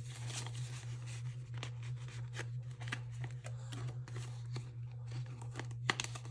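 Paper banknotes and the clear plastic sleeves of a ring-binder cash budget rustling and crinkling as they are handled and flipped, with scattered light clicks and a sharper click near the end, over a steady low hum.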